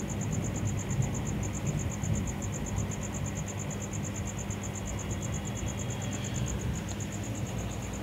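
Hot air rework station blowing on a laptop motherboard during component soldering: a steady rushing air noise with a low hum. A rapid, even, high-pitched pulsing chirp, about seven pulses a second, sounds over it.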